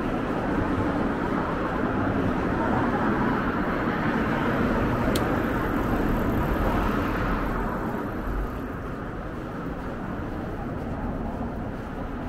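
Road traffic noise: a passing vehicle, steady for about eight seconds, then fading away. There is one sharp click about halfway through.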